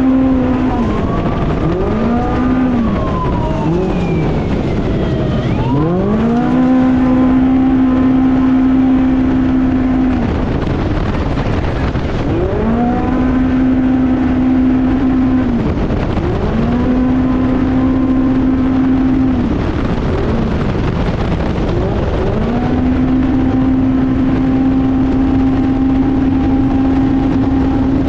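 Off-road race vehicle's engine under hard throttle: the pitch climbs and holds steady for several seconds at a time, dropping back briefly and climbing again about four times. A constant rough rumble and rattle runs underneath.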